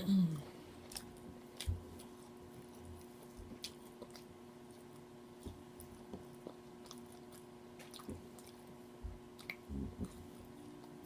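Close-mic chewing with wet mouth sounds and lip smacking, in scattered short bursts, from a person eating fried chicken. The loudest sound is a brief low vocal sound that drops in pitch at the very start.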